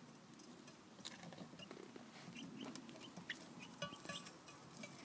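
Young chickens calling faintly with several short, high peeps, among light clicks, tapping and scuffling.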